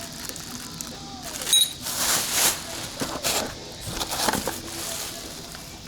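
Metal engine parts being handled: a few short scrapes and rattles, with a brief clink about a second and a half in.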